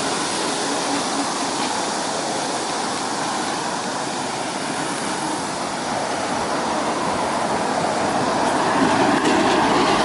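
Steady rushing noise of wind and road traffic, getting louder over the last couple of seconds as a small truck on the adjacent road draws near.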